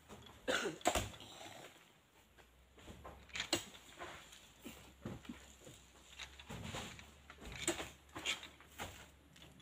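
Scattered knocks and thuds of oil palm fruit bunches being handled with a long pole and loaded onto a truck, a few sharp hits spread over several seconds.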